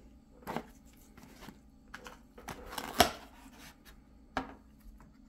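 Foam takeout clamshell being handled and its lid opened, with the plastic fork and sauce cup moved off the top: a few short scrapes and clicks. The loudest comes about three seconds in, with another near the end.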